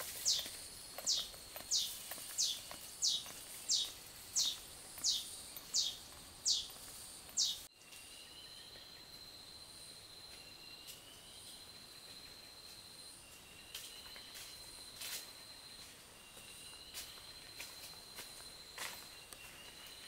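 Forest wildlife ambience. A loud, high call sweeps downward, repeated about three times every two seconds, until it stops abruptly about eight seconds in. After that a steady high insect trill comes in bouts of a second or two, with a few footsteps crunching on dry leaf litter.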